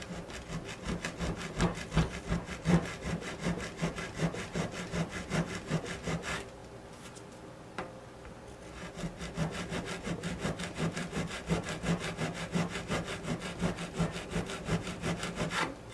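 Handsaw cutting a shallow groove across a willow stick in quick back-and-forth strokes, with a pause of about two seconds near the middle.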